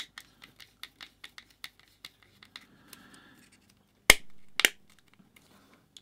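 Screwdriver working the cord-grip screws on a plastic BS1363 UK mains plug to loosen them: a run of small clicks and scrapes, about five a second at first, then two sharp clicks about half a second apart just after four seconds in, the loudest sounds.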